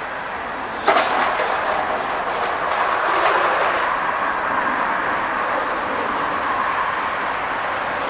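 Steady rushing noise of a passing vehicle that begins with a sudden knock about a second in and holds on through the rest, with faint high bird chirps over it.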